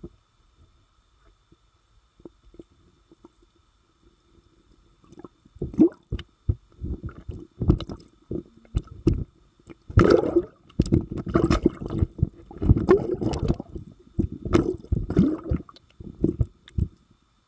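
Underwater recording: after a few near-quiet seconds, irregular muffled bumps, squishes and rumbling thuds against the camera housing, as catfish crowd around and brush against it.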